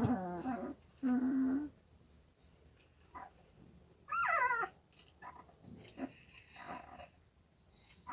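Young Jindo puppies whining: two held whines early on, then a higher whine that falls in pitch about four seconds in, with faint small sounds between.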